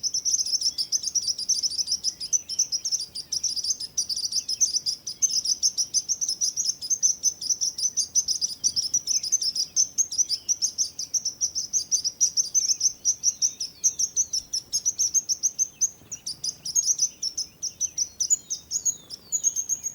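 Sparrows chirping: a rapid, unbroken run of short high chirps, several a second.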